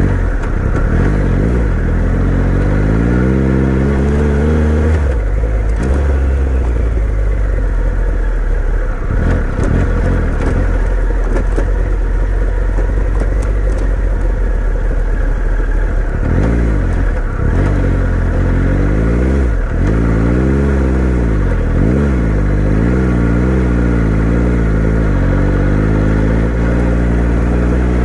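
Adventure motorcycle engine running under throttle off-road, its revs rising and falling again and again as the rider works the throttle, with the most up-and-down changes in the second half.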